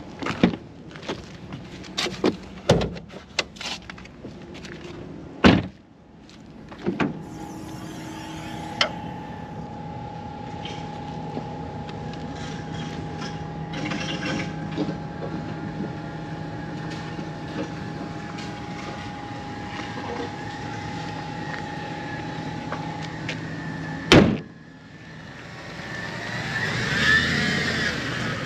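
Handling sounds around a Jaguar F-Type R75 convertible: a run of clicks and knocks, then two heavy slams like a door or bonnet shutting, one about five seconds in and one near the end, with a steady hum with a held tone between them.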